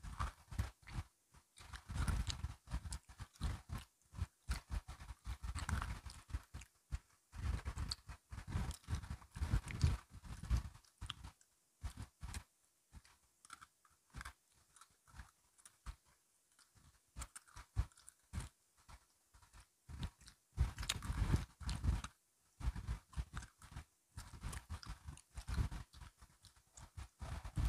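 Close-up crunching and chewing of crisp biscuit sticks: irregular clusters of sharp crunchy clicks with short pauses between bites, sparser through the middle stretch.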